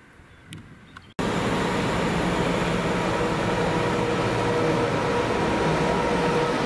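Faint countryside ambience, then about a second in the sound switches abruptly to a heavy diesel-hauled freight train passing: a loud, steady rumble with a few held tones running through it.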